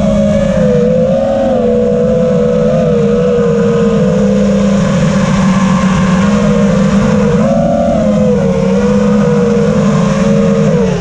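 5-inch FPV racing quadcopter's brushless motors and propellers whining steadily. The pitch wavers up and down with the throttle, with a brief rise about two-thirds of the way through and a sudden dip and recovery at the very end.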